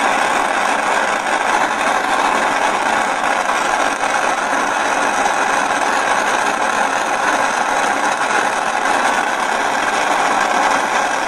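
Large handheld gas torch burning with a steady hiss, its flame held on a ring's solder join to heat it to near the solder's melting point so the join can be pulled open.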